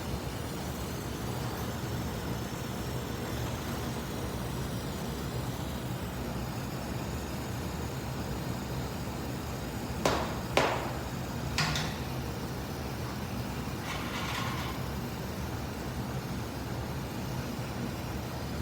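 A steady low mechanical hum of a machine running, with three sharp clicks a little past the middle and a short hiss a couple of seconds later.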